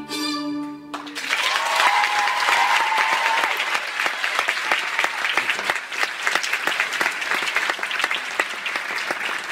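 A held note of the performance music stops about a second in, and an audience breaks into sustained applause, with a long cheer from someone in the crowd early in the clapping.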